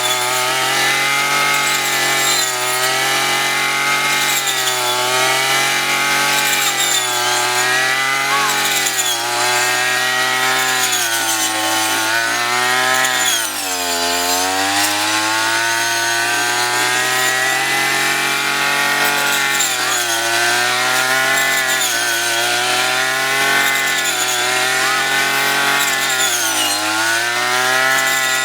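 Small 35 cc petrol engine of a hand-carried rice-harvesting machine running at high revs. Its pitch wavers up and down every second or two, with a deep dip and recovery about halfway through and a smaller dip near the end.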